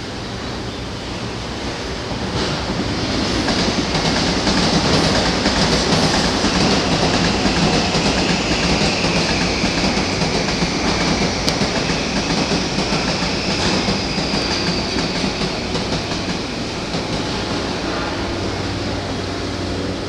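An electric train runs on the tracks beside the platform. It grows louder over the first few seconds and then slowly fades, with a faint high whine that sinks a little in pitch through the middle.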